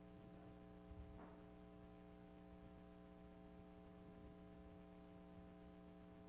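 Near silence: a faint, steady electrical hum in the room's sound system, with one soft thump about a second in.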